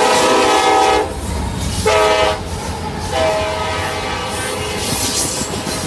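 Multi-tone horn of an EMD SD70M-2 diesel freight locomotive blowing as it passes close by. The long chord cuts off about a second in and one short blast follows about two seconds in. After that comes the low rumble of the trailing diesel locomotives rolling past.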